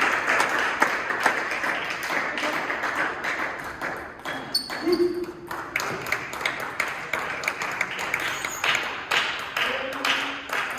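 Table tennis ball clicking off bats and table in quick succession during rallies, with voices in the background.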